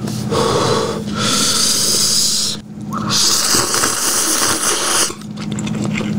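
A person loudly slurping hot cup ramen noodles off chopsticks in long, hissing draws, three in a row with brief pauses between.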